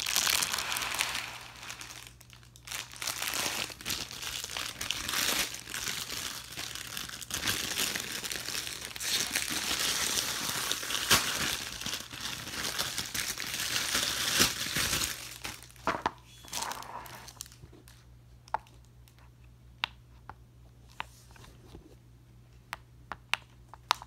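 Clear plastic wrapping around a silicone pop-it fidget crinkling and tearing as it is pulled open, for about the first fifteen seconds. After that it thins out to scattered light clicks and taps.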